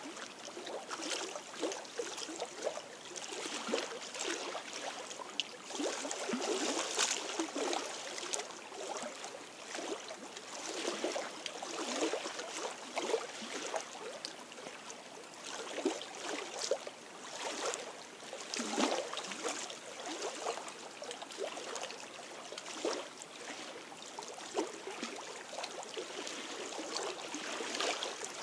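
Small lake waves lapping and splashing irregularly against shore rocks: a continuous patter of little splashes, several a second, with no steady rhythm.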